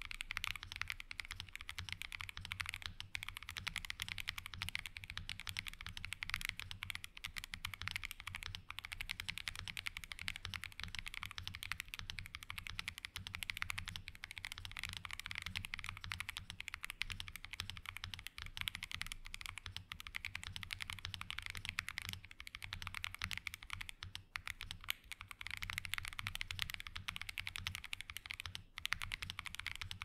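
Continuous fast typing on a mechanical keyboard with stock, unlubed Akko V3 Creamy Purple Pro short-travel tactile switches: a steady stream of short key clicks, with a brief lull near the end. Out of the box the switches carry a slight spring twang and an occasional tick that are not very noticeable.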